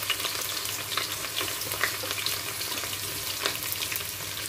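Freshly added sliced onions sizzling in hot ghee and oil in a pressure cooker, a steady hiss with many small crackles.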